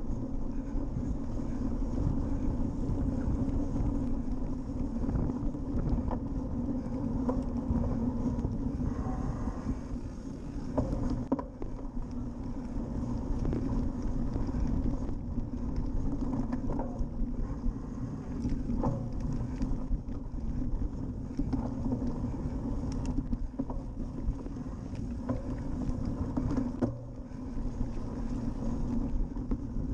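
Steady wind rumble on a cyclocross bike's action camera microphone as the bike is ridden over a bumpy grass and mud course, with scattered knocks and rattles from the bike over the rough ground.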